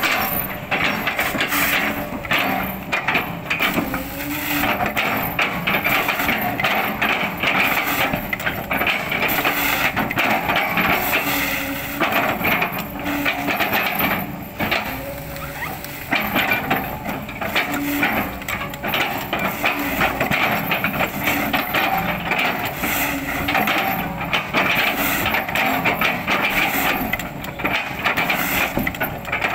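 Excavator engine and hydraulics working under load, with a wavering whine, while the bucket chops an oil palm trunk into chips, giving many sharp cracks and knocks of splitting wood.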